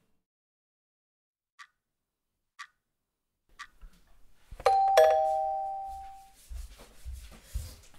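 A clock ticks faintly about once a second. About five seconds in, a two-tone ding-dong doorbell chime rings, high note then low, and fades over about a second. A few low thumps follow near the end.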